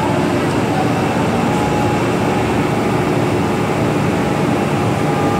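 Steady hum and rush of an MTR M-train standing at an underground platform, its air-conditioning and auxiliary equipment running, with a few faint held tones over the noise.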